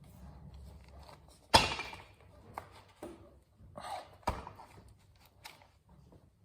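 Hard knocks and clanks of work by hand: one loud knock with a short ring about one and a half seconds in, a second strong knock past the middle, and smaller taps and handling noises between.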